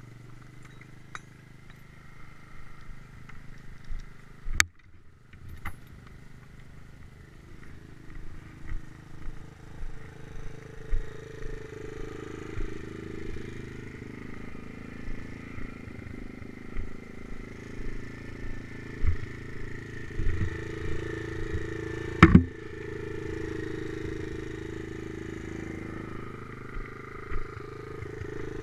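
Stomp pit bike's small single-cylinder four-stroke engine running steadily, at first while stopped and then ridden slowly over a bumpy farm track, with knocks and rattles from the bike. A sharp clank comes about four and a half seconds in, and a heavy thump a little past twenty-two seconds.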